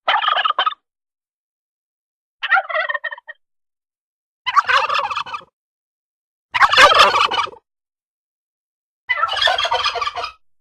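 Turkey gobbling in five separate bursts of about a second each, with dead silence between them.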